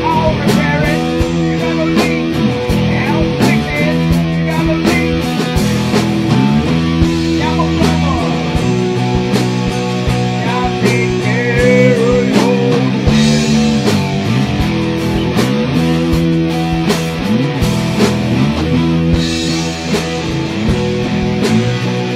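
Rock music led by guitar, with notes bending up and down over a steady beat.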